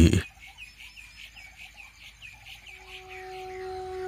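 Rapid, evenly repeated chirping, about five short high chirps a second, from a bird-and-insect field ambience. Near the end a long held wind-instrument note comes in and holds steady, a little louder than the chirping.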